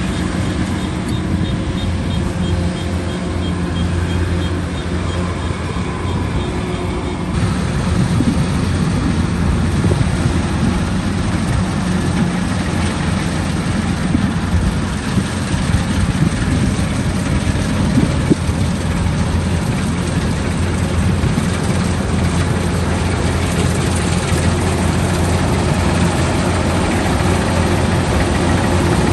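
Kubota rice combine harvester running steadily, its engine giving a low hum under the dense clatter of the machinery. About seven seconds in, the sound grows fuller and a little louder.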